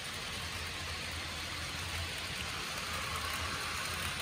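HO scale model freight cars rolling along the track: a steady rushing rumble of small wheels on rail with a low hum underneath. It grows a little louder in the second half as the Canadian National diesel locomotive draws near.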